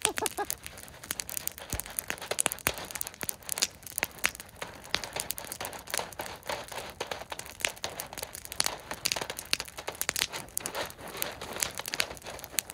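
Jiffy Pop popcorn popping in its foil pan over a campfire: many quick, irregular pops and crackles.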